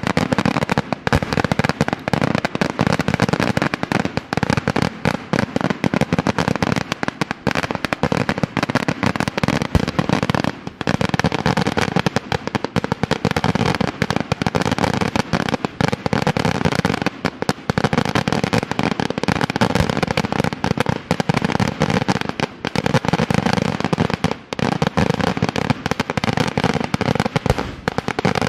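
Daytime fireworks barrage: a dense, continuous volley of rapid bangs and crackling reports from shells bursting overhead, with no let-up.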